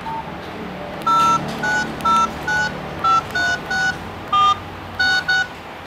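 Mobile phone keypad tones as a number is dialed: about ten short two-tone beeps, one per key press, at an uneven pace.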